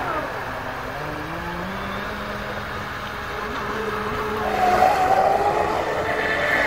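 Electric motor of a 3D-printed RC racing catamaran whining at speed over the hiss of water. The whine falls in pitch at the start and runs lower and wavering for a few seconds. It then rises and grows louder about four and a half seconds in.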